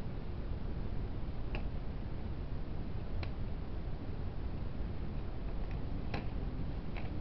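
Classroom room tone: a steady low hum with about five faint, irregular clicks and taps, the sharpest a little after six seconds in.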